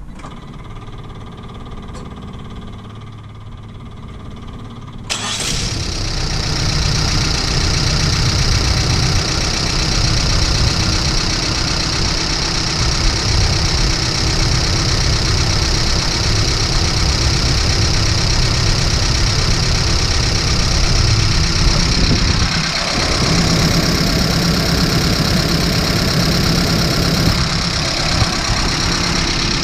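1991 Mazda B2200 pickup's 2.2-litre four-cylinder engine, fitted with a Weber carburettor, starts suddenly about five seconds in and then runs steadily. It is being fed by a temporary inline electric fuel pump after a weak in-tank pump had left it unable to start.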